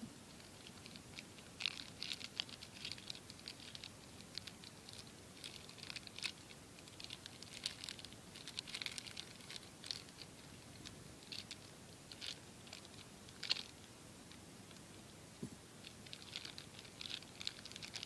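Light, irregular plastic clicks and crinkling, in clusters with short pauses: a Beyblade spinning top and its packaging being handled during unboxing.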